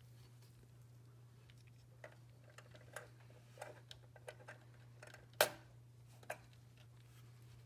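A scattered series of light clicks and taps over a steady low hum, the sharpest and loudest click a little past halfway.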